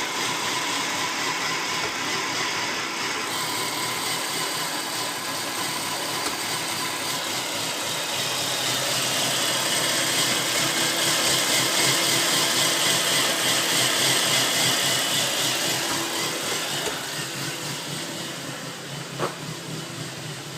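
A 2000 Volvo C70's inline five-cylinder engine idling rough. The owner traced the fault to a burnt-out wire on the engine computer's circuit board, damaged by a jump start with the cables reversed. A single short click sounds near the end.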